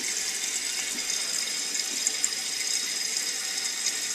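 Toilet tank refilling through a newly fitted fill valve: a steady hiss of running water.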